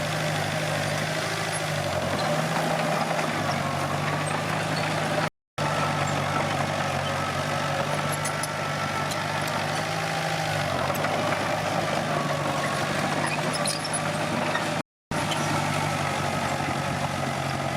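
Komatsu D21P bulldozer's diesel engine running steadily, its pitch sagging briefly twice as it takes load. The sound cuts out completely for a moment twice.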